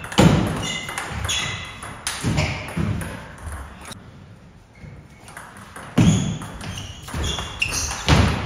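Table tennis ball being struck by bats and bouncing on the table in rallies: a quick series of sharp, ringing clicks. Play pauses for about three seconds in the middle before a new rally starts.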